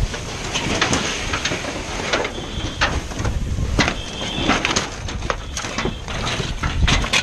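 Burning barn crackling and popping: irregular sharp snaps over a low, steady rumble.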